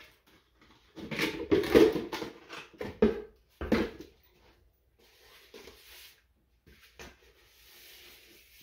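Buckets and containers being knocked and shifted while someone rummages for a bucket: a cluster of sharp knocks and clatter in the first few seconds, then quieter rustling.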